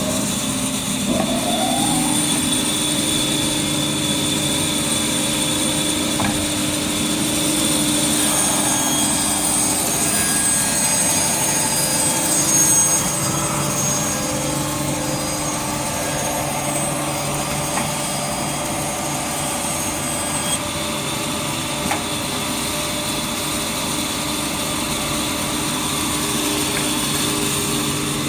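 Automatic band saw running steadily with its feed conveyor. Its blade finishes spinning up in the first second with a rising whine, and the tone of the running saw changes at about 8 seconds in and back again at about 20 seconds.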